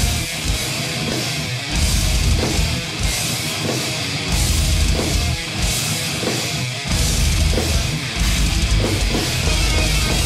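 Loud heavy-metal intro music with electric guitar and drums.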